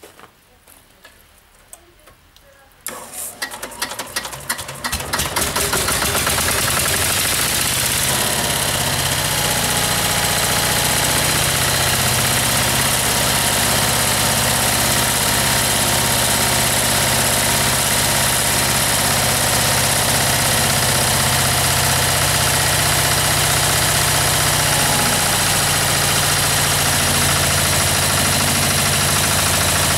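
Lombardini LDA 97 single-cylinder air-cooled diesel on a Pasquali 945 two-wheel tractor, cold-started in winter: cranked by its Bosch dynamotor from about three seconds in. It catches about five seconds in and settles into a steady idle.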